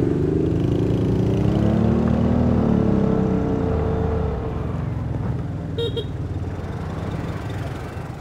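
Vespa Primavera 150 scooter engine pulling away from a stop: its pitch rises over the first few seconds, then eases back to a steadier cruise. A short beep comes about six seconds in.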